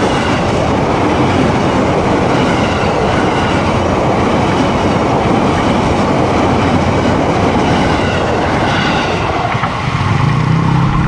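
JR 205 series electric commuter train passing at close range, its wheels running loudly along the rails. About ten seconds in the train noise gives way to the low hum of motorcycle engines.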